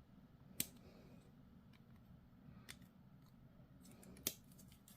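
Sprue cutters snipping plastic miniature parts off the frame: two sharp snips, about half a second in and near the end, with a fainter click between, over near silence.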